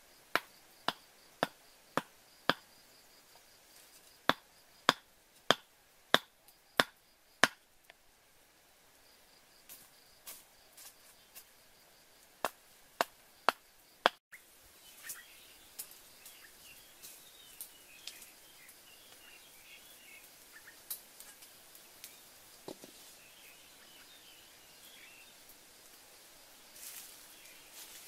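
A series of sharp, regular knocks, about two a second, in three short runs, like chopping or striking. After a break there are only faint high chirps in the background.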